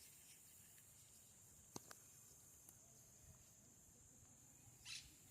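Near silence: a faint, steady, high-pitched insect trill, with one sharp click about two seconds in and a brief rustle near the end.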